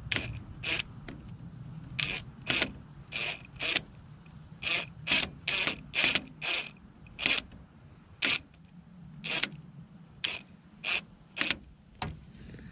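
A screw being driven in by hand to fit a retaining screw that stops the door handle cable's ball end from popping out of its socket. About twenty short strokes, irregularly spaced under a second apart, stopping shortly before the end.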